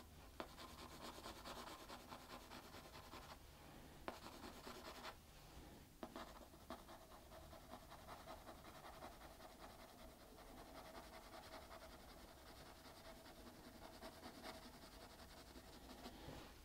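Faint scratching of a yellow wooden graphite pencil shading on drawing paper, with a few soft ticks.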